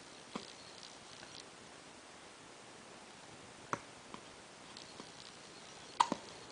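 Hiccups: three short, sharp hiccups a few seconds apart, the last the loudest, with a few fainter ticks between.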